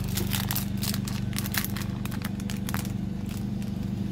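Foil booster-pack wrapper crinkling and crackling in the hands as it is torn open, over a steady low hum.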